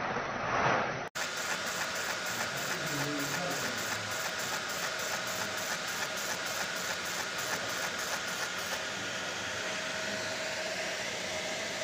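Steady production-line machinery noise: an even hiss with a faint steady hum, and a quick regular ticking that stops about three seconds before the end.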